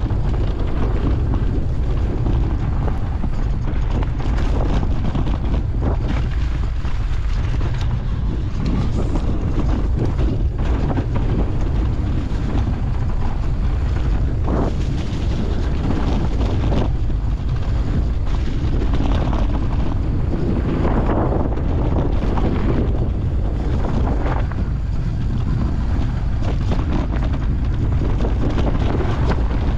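Wind rushing over the microphone of a handlebar-mounted camera as a mountain bike rides fast down a dirt singletrack, with the tyres and bike knocking and rattling over bumps now and then.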